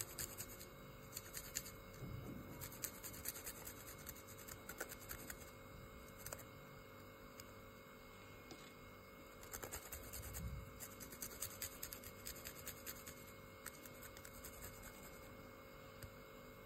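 Garlic cloves rubbed by hand across a small flat stainless-steel grater: faint, quick scratchy rasping strokes, in two spells with a pause in between.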